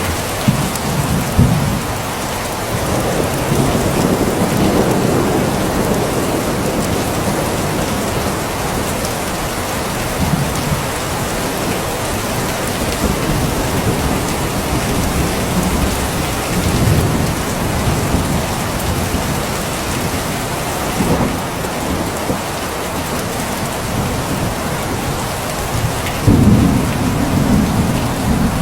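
Steady rain falling, with thunder rumbling low several times beneath it; a louder roll of thunder begins near the end.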